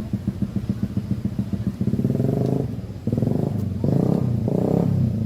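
An engine running with a fast, even pulse, then revved in four short bursts from about two seconds in.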